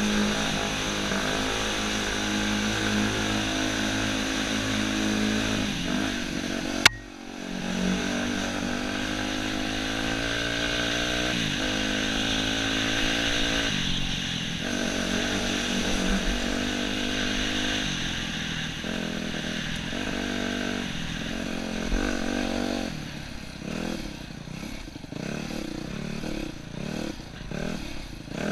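Yamaha YZ250F dirt bike's 250 cc four-stroke single-cylinder engine under way, its revs rising and falling as the rider works the throttle and gears. One sharp click comes about seven seconds in, and the engine note drops briefly after it. Near the end the revs go up and down in quick, short blips.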